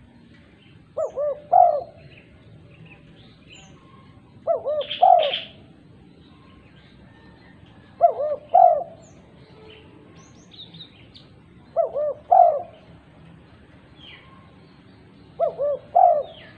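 Female spotted dove cooing: five short phrases of a few low coo notes each, repeated about every three and a half seconds, with faint higher chirps in the background.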